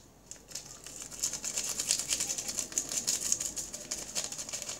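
A paper sachet of baking powder being torn open and crinkled in the hands: a rapid, crackling rustle that starts about half a second in.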